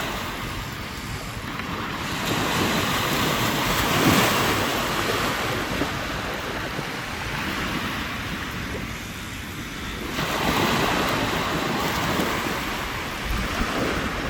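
Waves breaking and washing up a sandy beach, the surf swelling about four seconds in and again near the end, with wind buffeting the microphone.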